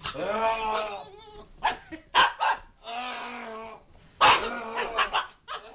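Small dog barking and growling in short, sharp outbursts, excited by a person's voice droning through a cardboard wrapping-paper tube. The loudest bark comes about four seconds in.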